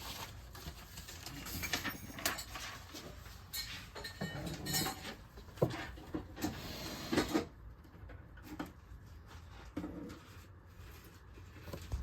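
Scattered clicks, knocks and rustling of objects being handled, over a low steady hum.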